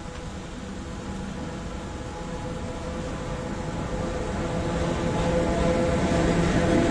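Freight train of loaded coal wagons hauled by an electric locomotive, approaching and passing: a steady electric hum over rolling wheel noise, growing steadily louder as the locomotive comes level.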